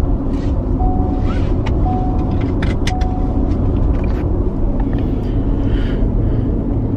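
Seatbelt being buckled in a Ford Explorer's cabin: a short warning chime sounds three times about a second apart, with sharp clicks of the belt and buckle among them, after which the chime stops. A steady low rumble of the vehicle cabin runs underneath.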